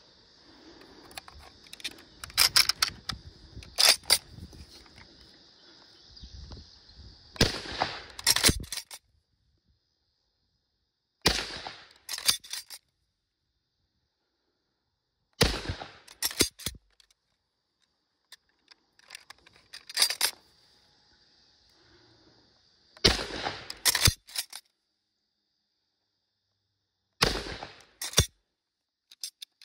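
Arisaka Type 44 carbine, a 6.5 mm bolt-action rifle, firing five shots a few seconds apart. Each loud shot is followed by quick metallic clacks as the bolt is worked. Metallic clicks of handling the open action come in the first seconds, and a steady high buzz sits in the background between shots.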